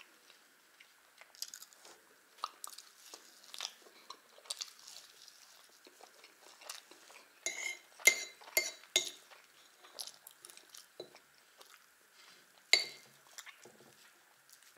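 A person chewing and eating pancakes with strawberry jam, with a metal spoon clinking and scraping against a saucer. A quick run of sharp, ringing clinks comes about eight seconds in, and one loud clink a few seconds before the end.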